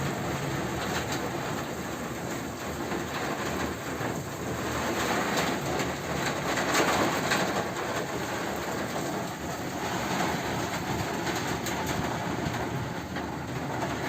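Heavy downpour: a steady, dense hiss of pouring rain, growing louder for a few seconds around the middle.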